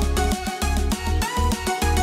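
Upbeat background music with a steady beat and plucked-string melody.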